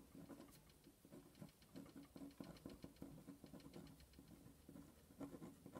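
Faint scratching of a pen writing on paper, an irregular run of short strokes as words are written out.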